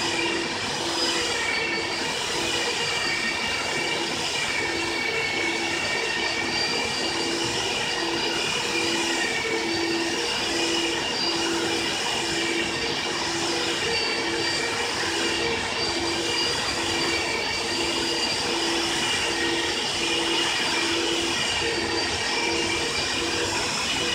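Water-filter vacuum cleaner running steadily: a rushing air noise with a high motor whine, and a low hum that pulses about once a second.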